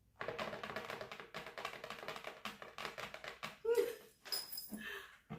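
Paper packaging crinkling and rustling in rapid crackles as a gift box is opened and unwrapped. A brief vocal sound comes about four seconds in.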